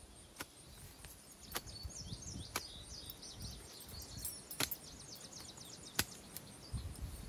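Several sharp clicks and knocks, a second or so apart, the loudest about four and a half and six seconds in, over low rumbling noise. A small bird sings a rapid high twittering song from about two seconds in until about five and a half seconds in.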